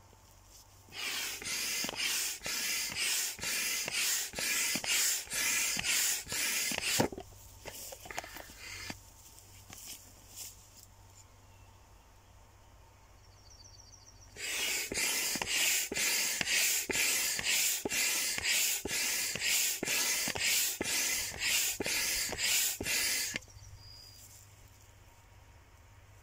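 Hand pump inflating a large vinyl pool float through its hose: a steady rhythm of air rushing in strokes, about two a second, in two runs with a pause of several seconds between them.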